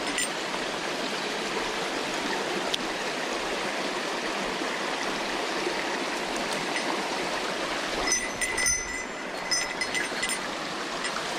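Mountain stream water rushing steadily. Near the end, a few sharp clicks and a brief thin high tone.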